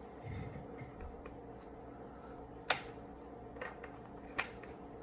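Handling noise from a Micro Draco AK pistol being turned over in the hands: a few faint ticks and two sharp clicks, one past halfway and one near the end, over a low steady hum.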